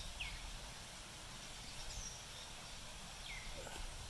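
Faint steady background noise with three short bird chirps, each a quick downward sweep in pitch, spread across the few seconds.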